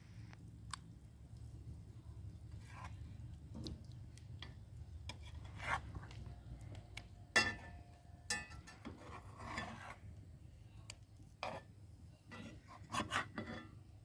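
Scattered scrapes, rubs and light clinks of things being handled, over a low steady rumble, with the sharpest scrape about seven seconds in.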